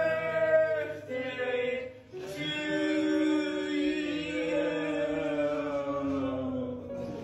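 Singing: a voice holding long notes, the longest held for several seconds from about two seconds in and slowly falling in pitch.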